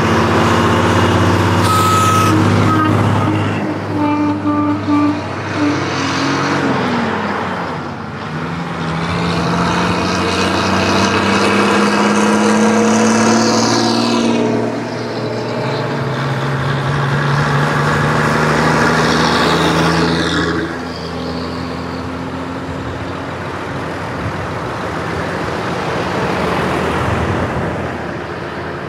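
Several old diesel lorries driving past one after another, each engine note climbing as it pulls and then dropping away as it passes. A few short horn toots sound about two to five seconds in.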